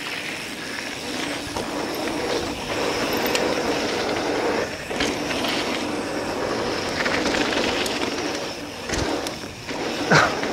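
Mountain bike tyres rolling fast over a packed-dirt track, heard from a helmet-mounted camera with rushing wind noise and scattered clicks and rattles from the bike over the bumps.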